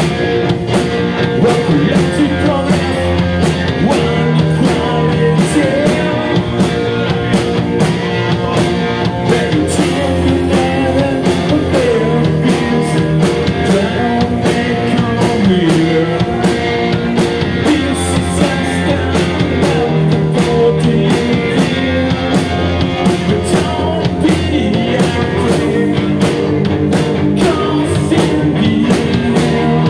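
Live rock band playing at full volume: two electric guitars, electric bass and a drum kit keeping a steady beat, with a male lead vocal.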